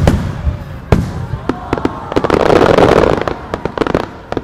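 Aerial firework shells bursting: a string of sharp bangs, then a dense crackle of many small pops around two to three seconds in, and more bangs near the end.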